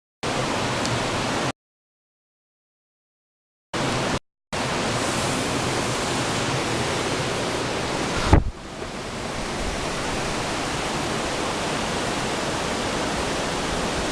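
Waterfall water rushing in a steady, even hiss. The sound cuts out completely twice early on. About eight seconds in there is a short low thump, after which the rushing continues slightly softer.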